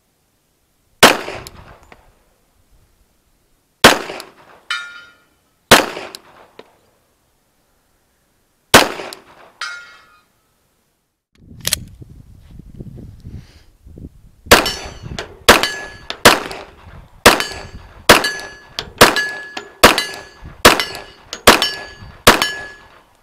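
Glock 41 .45 ACP pistol firing: four single shots a couple of seconds apart, some followed by the brief ring of a steel target being hit, then a faster string of about a dozen shots a little under a second apart.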